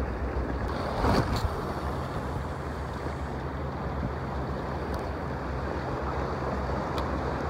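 Sea surf washing against rocks, with wind buffeting the microphone as a steady low rumble. A brief knock from handling the gear comes about a second in, and a faint click near the end.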